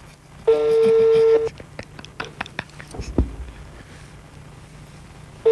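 Telephone ringback tone heard down the phone line: a steady tone about a second long, a few faint clicks, then the next ring starting near the end. The call is ringing unanswered.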